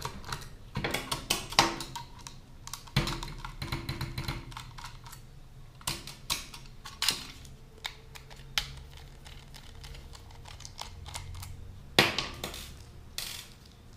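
Irregular clicks and taps of a screwdriver backing small screws out of a PlayStation 3's metal hard-drive caddy, with a few louder knocks.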